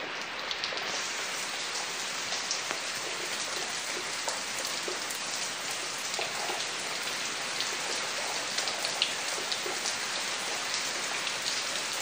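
Steady heavy rain, with many single drops striking leaves close by.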